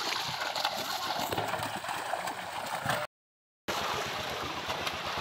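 Water splashing and churning as a crowded catch of fish thrashes inside a seine net drawn tight in a shallow pond. The sound drops out completely for about half a second a little past halfway.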